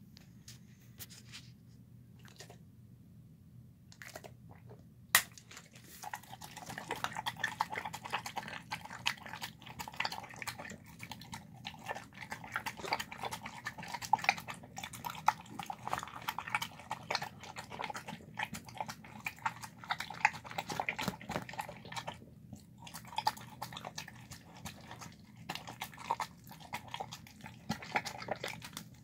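A dog eating chicken, rice, beans and tendons from a plastic tub: rapid, irregular chewing and mouth clicks that start about six seconds in and go on steadily. Just before that there is a single sharp knock, the loudest sound.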